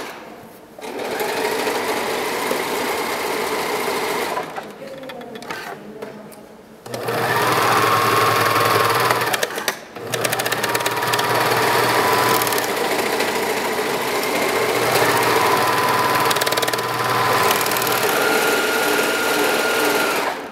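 Serger (overlock sewing machine) stitching fabric in several runs, its motor whine rising as it speeds up and falling as it stops. It eases off for a couple of seconds about four seconds in and stops briefly near the ten-second mark before running on.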